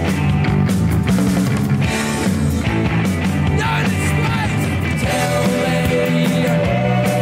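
Rock music playing loud and without a break. A new held melody line comes in about five seconds in.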